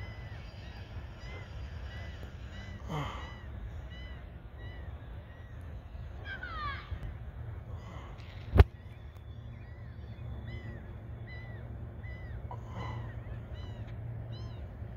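Gulls calling repeatedly, a long string of short, arched cries, with one sharp loud click a little past halfway and a steady low rumble underneath.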